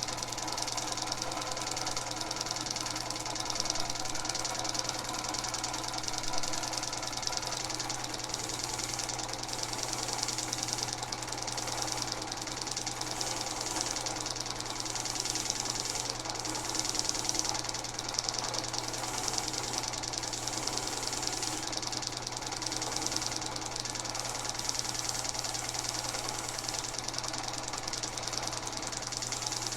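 Vintage Langelier drill press motor running steadily with a low hum, driving a wire wheel that scrubs crud off cast-iron vise parts with a continuous hiss.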